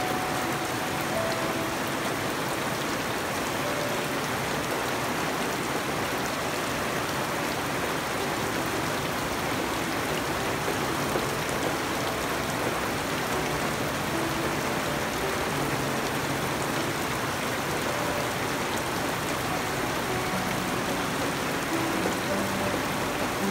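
Steady rain falling on garden foliage and wet ground, an even, unbroken hiss.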